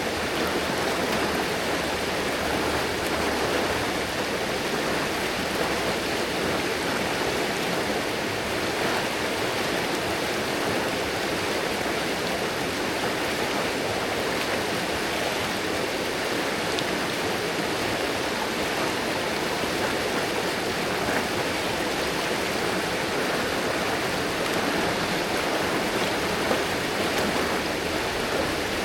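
River water rushing and splashing steadily over rocks.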